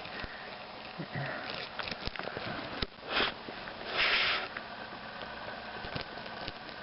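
Dry rice grains rustling and clicking as the phone is dug out of the rice. Two short hissing bursts come about 3 and 4 seconds in, the second the louder and longer.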